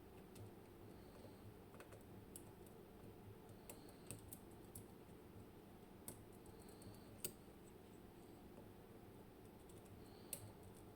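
Faint, scattered metallic clicks of a dimple pick working inside an M&C Matrix dimple lock cylinder as its pins and sliders are picked, with two sharper clicks about 7 and 10 seconds in.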